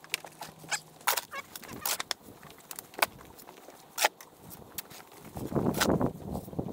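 Scattered light clicks and knocks, then, about five seconds in, a steel shovel scooping and dumping a load of dry soil onto a heap of powdered cement, a rough scraping, pouring noise that is the loudest sound here.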